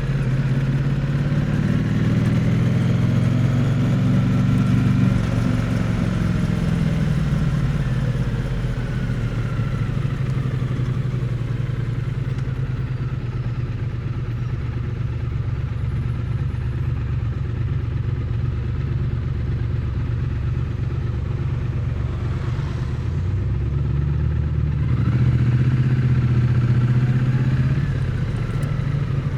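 Triumph Bonneville T100's parallel-twin engine and exhaust, recorded close to the exhaust while riding. The revs rise and fall in the first few seconds, settle to a low, steady run through the middle, and rise again near the end.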